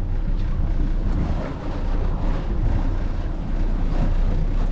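Strong wind buffeting the microphone on an open fishing boat at sea: a steady low rumble and rushing noise.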